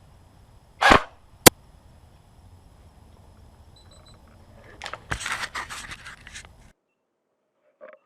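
Airsoft gunfire on the field: a short noisy burst about a second in, a single sharp crack of a shot just after, then a rapid irregular string of cracks and rattles from about five seconds that cuts off abruptly.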